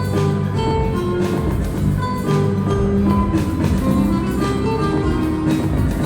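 Instrumental break of a pop song: a bright melody on a mallet-like or steelpan-like sound over a steady beat and bass.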